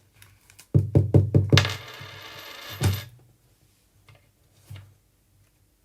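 Background music: a quick run of about six heavy drum hits, then a loud, hissing held swell that cuts off about three seconds in. Only a few faint ticks follow.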